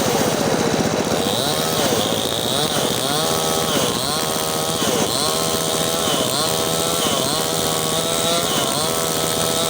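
Mini chainsaw cutting through wood. Its motor pitch drops each time the chain bites and climbs back, about once a second.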